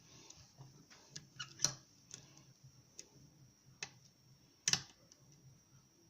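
Lock picks working inside a challenge lock: scattered small metallic clicks and ticks, irregularly spaced, with two sharper clicks about a second and a half in and just under five seconds in, as the pick lifts and sets pins under tension.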